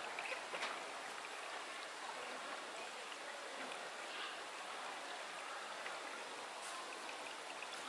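Steady outdoor background hiss, even and without a call, with a couple of faint ticks early in the first second.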